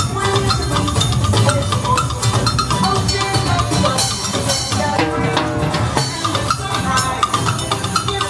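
Music with a steady beat of drums and hand percussion.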